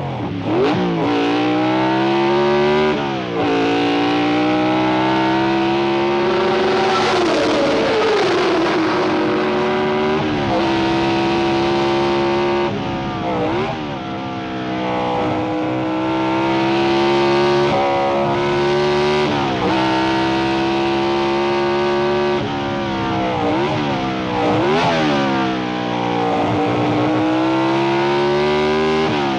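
1960s Formula One racing car engines revving hard and passing close. The pitch climbs through the gears, drops sharply and climbs again, over and over, with one long falling sweep as a car goes by.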